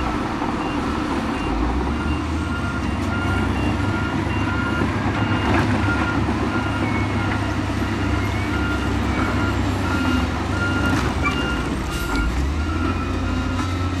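Diesel engine of heavy earthmoving machinery running steadily while a reversing alarm beeps at an even pace, with a few sharp knocks over it.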